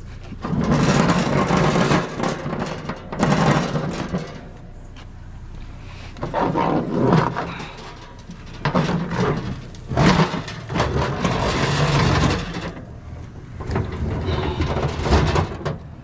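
Vehicle on the move, its engine and road noise swelling and fading in about six surges of one to two seconds each.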